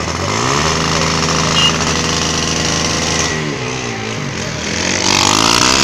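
Motorcycle engine revved up within the first second and held at high revs, then dropping and wavering about three and a half seconds in before revving up again near the end.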